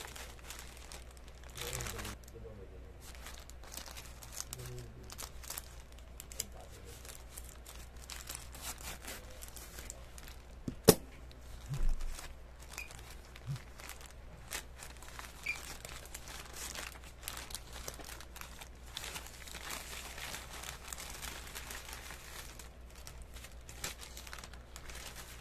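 Plastic courier mailer bag crinkling and rustling as it is handled and torn open, with one sharp knock about eleven seconds in.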